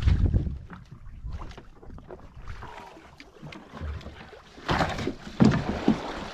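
Sea water slapping and splashing against the hull of a small outrigger boat, with wind buffeting the microphone. There is a low thump right at the start and louder splashes about five seconds in.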